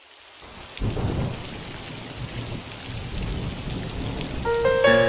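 Rain falling, fading in at the start, with a rumble of thunder about a second in; notes of a melody enter near the end.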